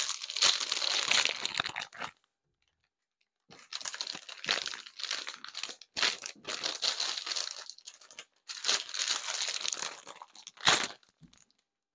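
Plastic bag of dried bay leaves crinkling and rustling as it is handled and opened, in bursts with a pause of about a second and a half after the first two seconds. A single sharp click near the end.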